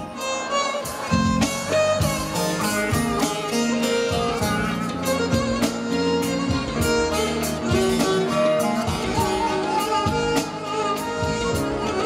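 Live band music: an instrumental passage between sung lines, with a melody over a steady drum beat and no singing.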